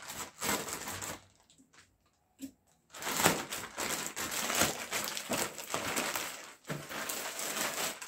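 Plastic courier bag crinkling and rustling as a package is unwrapped: a short burst of rustling, a pause of about two seconds, then continuous crinkling as the box is pulled out.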